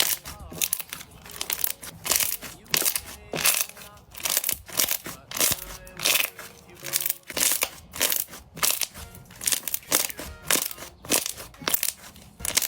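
Crunchy slime being worked, giving a steady series of sharp crunches about two a second over faint background music.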